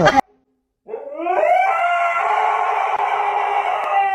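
A dog howling: one long call that starts about a second in, rises in pitch and is then held steady.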